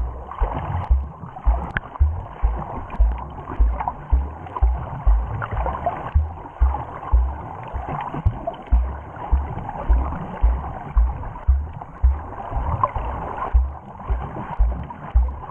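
Underwater sound picked up by a GoPro Hero Session as a snorkeler swims: a rhythmic low thumping, a little under two beats a second, over a steady muffled rushing of water.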